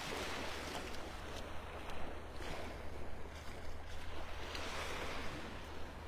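Small Gulf waves washing up on a sandy beach: a surf hiss that swells and fades about three times, over a steady low wind rumble on the microphone.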